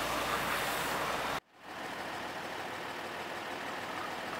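Steady outdoor rushing noise that cuts off abruptly about a second and a half in. A quieter, even vehicle-engine hum follows.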